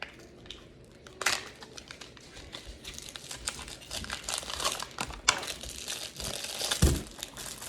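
Plastic packaging crinkling and crackling as it is handled, with a dull bump near the end.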